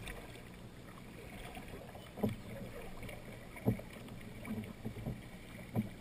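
Kayak paddle blades splashing into the river, three strokes about a second and a half apart, over a steady low rush of moving water.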